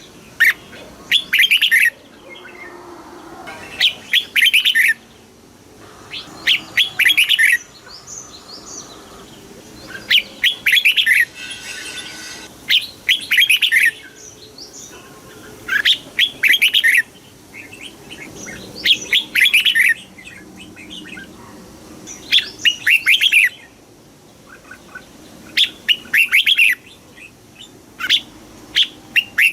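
Red-whiskered bulbul singing: short, loud phrases of rapid chirping notes, repeated about every two to three seconds.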